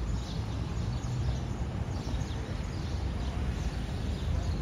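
Outdoor street ambience: a steady low rumble with faint, short chirps of small birds every second or so.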